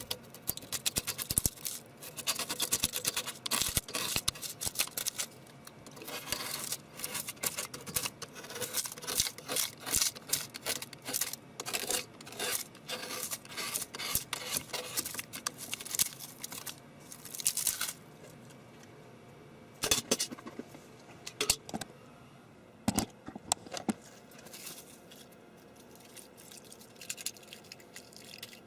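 Rapid clicking, rattling and scraping of hard objects being handled, dense and continuous for most of the first eighteen seconds, then thinning to scattered clicks and a few sharper knocks.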